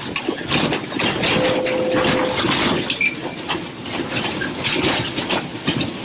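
Continuous loud rattling, clattering and rumbling of a room and its contents shaking in a strong earthquake, with a brief steady tone about a second in.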